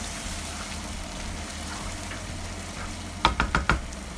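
Tomato stew base frying and sizzling steadily in oil in a pan. A little over three seconds in come four quick, sharp knocks.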